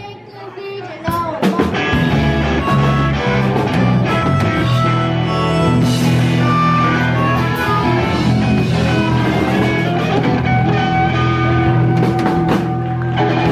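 Live blues-rock band playing, with drum kit and electric guitar; the music dips briefly at the start and comes back in full about a second in.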